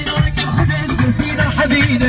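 Music with a steady drum beat and a moving bass line.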